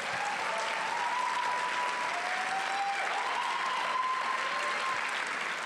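Audience applauding, with a few long high-pitched calls from the crowd held over the clapping.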